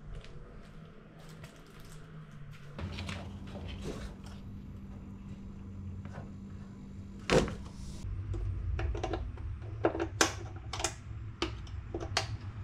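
Scattered clicks and knocks of hands handling a new microwave oven's packaging and its power cord with earth wire, then a screwdriver working at the earth terminal of a wall outlet. The sharpest knock comes about seven seconds in and a run of small clicks near the end, with a low steady hum through the middle.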